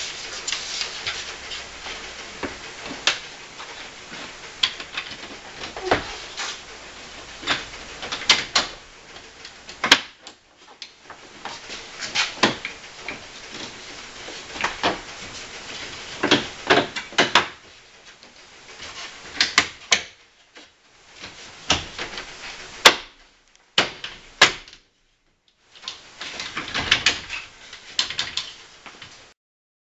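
Plastic front grille of a 1998 Subaru Forester being handled and fitted back onto the car: a run of sharp clicks, knocks and rattles, with short pauses between them.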